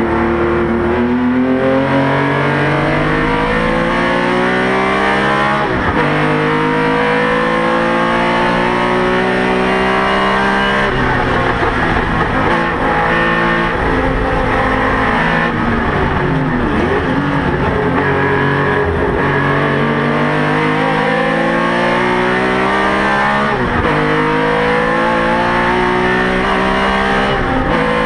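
Porsche 911 RSR race car's flat-six engine heard from inside the car, pulling hard under load. Its pitch climbs and drops sharply at each gear change, several times over.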